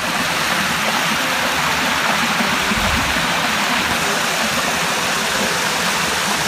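Creek water pouring over a granite ledge into a waterfall: a steady, unbroken rush.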